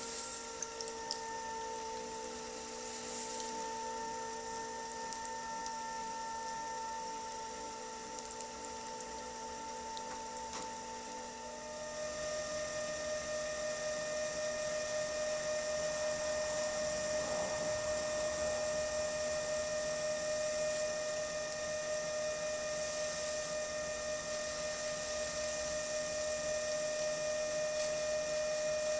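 Electric pottery wheel motor running with a steady hum and whine while wet clay is worked on the wheel head. About twelve seconds in, the tone of the motor shifts and it grows a little louder as the wheel speed changes.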